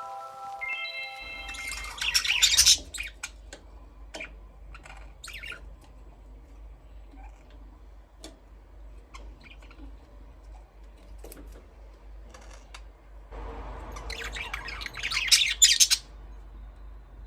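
Budgies chirping and squawking in two loud bursts of rapid high chirps, one near the start and one near the end, with scattered single chirps between them and a steady low hum underneath. A short rising chime of mallet notes ends about a second in.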